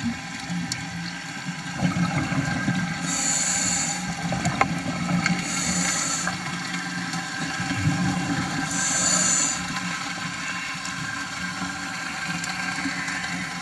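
Scuba diver breathing through a regulator, heard underwater: three short hisses of inhaled air about 3, 5.5 and 9 seconds in, with bubbling and rumbling between them.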